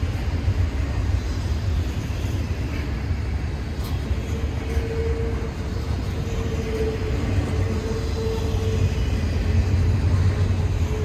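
Double-stack intermodal freight train rolling past, its loaded well cars making a steady low rumble on the rails. A faint thin tone rides over it from about four to nine seconds in.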